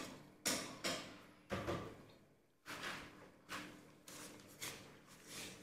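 Roasted peanuts being sprinkled by hand onto bowls of pig-blood pudding on an aluminium tray: a string of faint, sudden taps, each fading quickly, roughly one or two a second.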